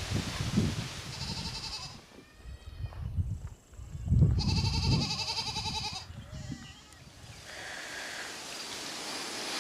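An animal calling twice, each call a wavering held tone: a short call about a second in and a longer, louder one about four seconds in, over a low rumble.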